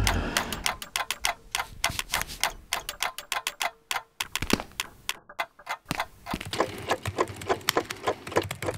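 Rapid, even ticking, several ticks a second, like a clock, with a short break a little past the middle.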